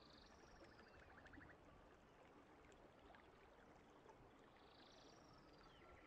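Near silence with faint outdoor ambience: a soft rapid trill about a second in and a higher, falling call near the end.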